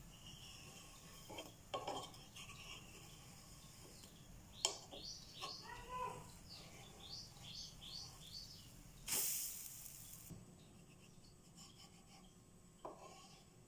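Wooden spatula working a pancake on a nonstick pan: a few light taps, a run of short scrapes as it loosens the edges, and a louder rasping scrape of about a second as it slides underneath to flip it. Faint overall.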